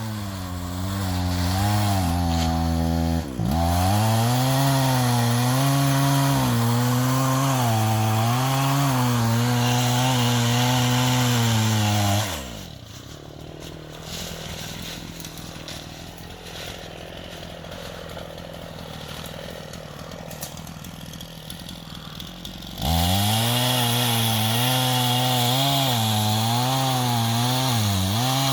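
Gasoline chainsaw cutting through oak logs, its engine note wavering as it bogs under load and picks up again. About halfway through it drops to a quieter, steady running for roughly ten seconds, then goes back into the cut.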